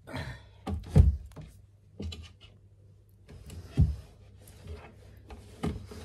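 A few dull thumps of objects being handled and set down, the loudest about a second in and another near four seconds, with quieter rustling between.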